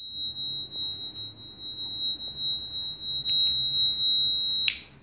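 Piezo buzzer on a pure sine wave inverter's control board sounding one continuous high-pitched tone: the protection alarm after the output has been short-circuited. It cuts off abruptly with a click near the end.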